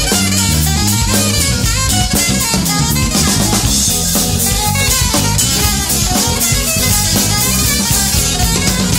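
Live band playing an instrumental, with the drum kit's snare and bass drum to the fore over electric bass, electric guitar and saxophone.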